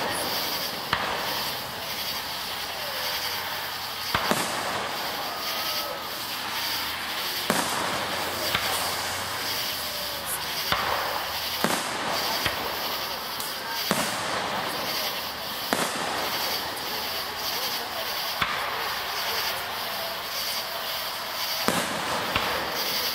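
Fireworks display: aerial shells bursting, a sharp bang every two to three seconds over a steady background noise.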